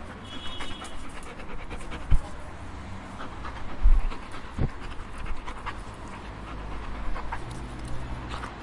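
A dog panting, with a couple of low thumps, one about two seconds in and a louder one about four seconds in.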